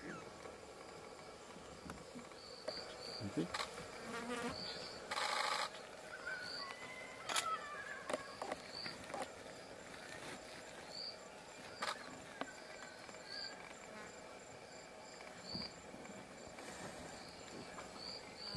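Insects buzzing and chirping, with a short high chirp repeating every second or so. About five seconds in there is a brief, louder rush of noise.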